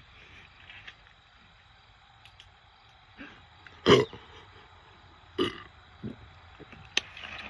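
Short, stifled throat sounds from a man chugging a 2-liter Diet Coke while holding back burps: four brief ones, the loudest about four seconds in, then a sharp click near the end.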